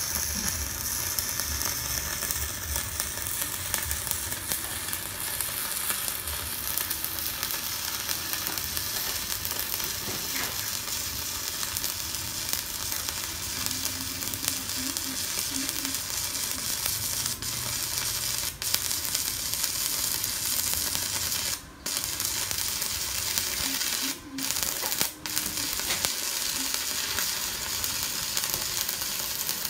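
Kenmax ARC 200 stick welder burning an electrode: a steady crackling, sizzling arc. The sound drops out briefly about three times in the second half.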